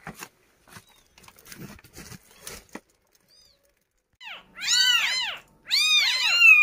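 Faint knocks and rustling, then from about four seconds in a newborn kitten mewing loudly: a quick run of high, rising-and-falling cries.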